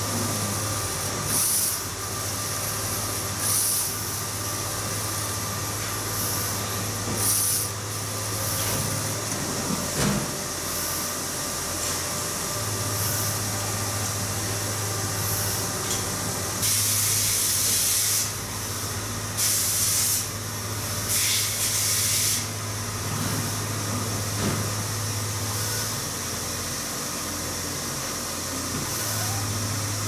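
Flatbed inkjet printer running, a steady mechanical hum with short bursts of hiss every few seconds. The hum drops out briefly twice.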